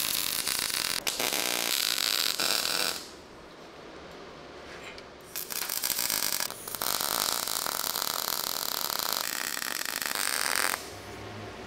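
Electric welding arc crackling in two runs, the first about three seconds and the second about five seconds, with a pause between. Steel bushes are being welded onto a wheel-station axle.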